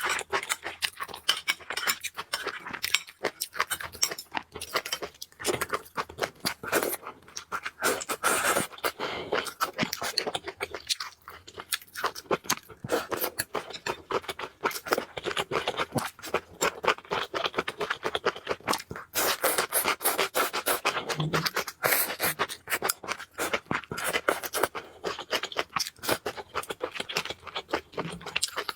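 Close-miked eating of noodles: continuous chewing, a dense run of short wet clicks and crunches.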